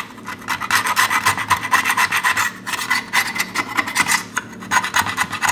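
Window-scraper razor blade scraping dried gummed-tape glue buildup off the metal underside of a gummed tape dispenser's heater plate, in rapid short strokes several a second with brief pauses about halfway through and a little after four seconds. The buildup being removed forms a lip where tape catches and jams.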